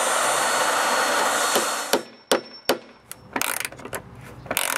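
Power drill driving a long bit through wood, running steadily with a high whine for about two seconds and then stopping. A series of sharp clicks and knocks follows as a wrench tightens a nut on a carriage bolt.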